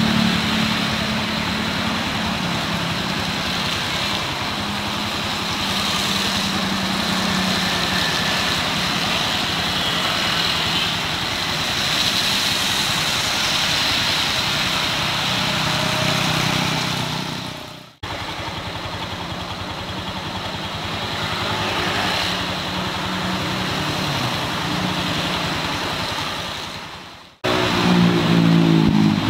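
Road traffic: motorbike and car engines running and passing. The sound is steady and broken by two abrupt cuts.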